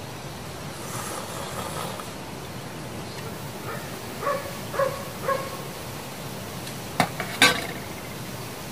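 Two sharp metal clinks about seven seconds in, chopsticks knocking against a stainless steel pot. A little past the middle, a run of three short high calls about half a second apart.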